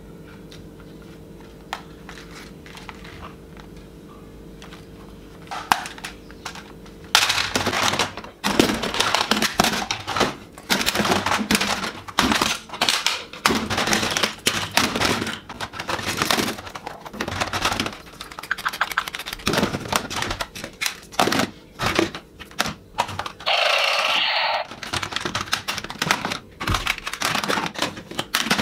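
Plastic toy guns clattering and clacking against each other as they are handled and piled into a cardboard box: a dense run of knocks and rattles from about a quarter of the way in, with a brief scrape late on. Before that only a faint steady hum and a few isolated clicks.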